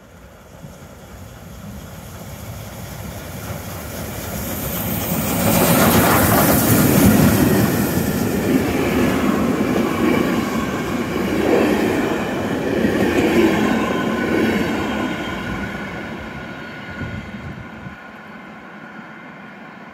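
Steam train hauled by class 52 locomotive 52 8154-8 passing through a station at speed. It grows louder as it approaches, is loudest about six to seven seconds in as the locomotive goes by, then the coaches roll past, and it fades away near the end.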